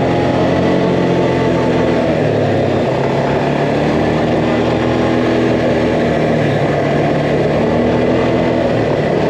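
Quad (ATV) engine running steadily while riding, its pitch rising and falling gently with the throttle.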